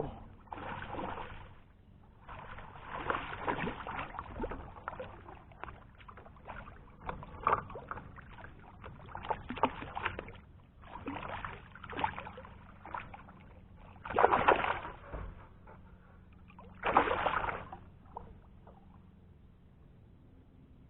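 Kayak paddle strokes through water: a splashing, dripping swish every couple of seconds, the last two the loudest.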